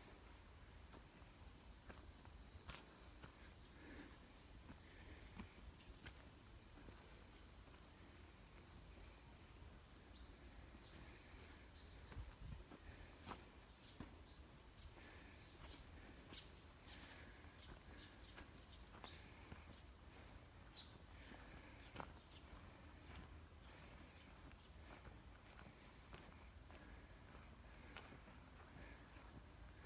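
A steady, high-pitched chorus of insects, continuous and unbroken, with a few faint clicks scattered through it.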